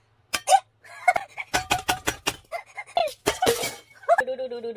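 A flexible stick smacking a foam floor mat in a quick series of sharp strikes, with a short noisy burst among them. Music starts near the end.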